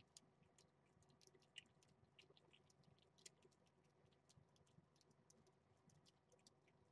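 Near silence, with faint irregular clicks of a cat and kittens chewing and licking food from a plate.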